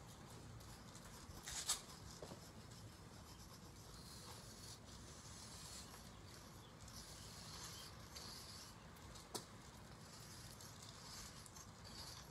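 Sidewalk chalk scraping on a concrete sidewalk, a faint, uneven scratching as lines are drawn, with two sharp clicks, one near the start and one about three-quarters of the way through.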